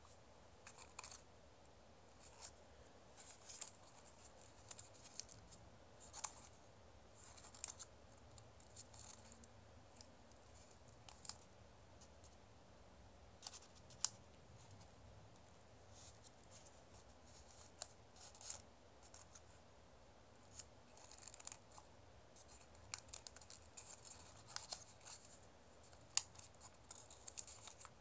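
Origami paper being handled and folded by hand: irregular crisp crackles and rustles of the paper, a few sharper snaps among them.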